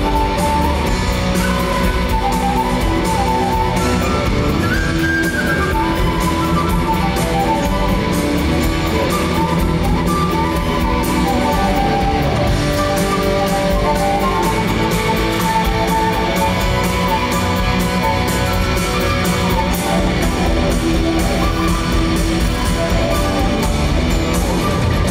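Live rock band playing, with a flute melody over electric guitar, bass and drums.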